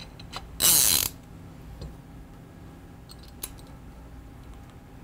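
Islander Steelheader centerpin reel being closed back up by hand: about a second in, a brief loud ratcheting buzz of about half a second that slows as it dies away, then a few light clicks of metal parts.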